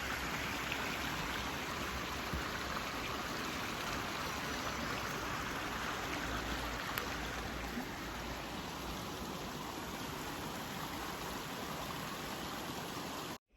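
Steady rushing of running water, like a mountain stream, that cuts off suddenly near the end.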